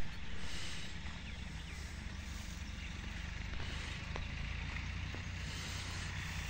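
Wind buffeting the microphone as a steady low rumble, with a soft rustle of wheat stalks and tall grass being brushed through on foot.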